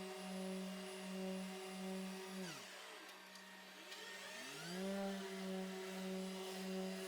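Background music: a steady synth drone that pulses about twice a second. About two and a half seconds in, its pitch dives away and it drops out briefly, then it glides back up to the same tone about four and a half seconds in.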